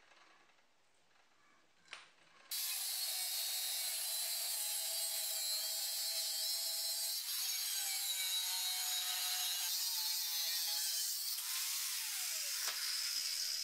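Angle grinder cutting steel plate, starting about two and a half seconds in and running steadily for about ten seconds. Near the end it spins down with a falling whine and stops.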